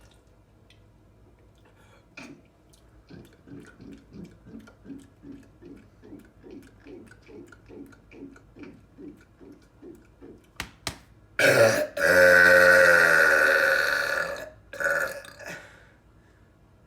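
A run of soft, rhythmic gulps, about two or three a second, as soda is chugged, then one long, loud burp lasting about three seconds, trailing off into a few short bursts.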